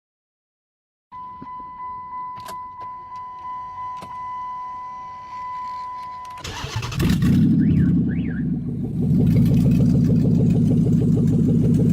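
A car's dashboard warning chime sounds as a steady, repeating high tone. About six seconds in, the engine cranks, starts and settles into a loud, steady run.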